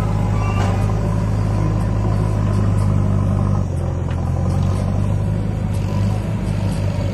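Massey Ferguson 9000 tractor's diesel engine running steadily under load as it pulls a fully loaded trolley, with a low, even engine note that dips briefly about halfway through.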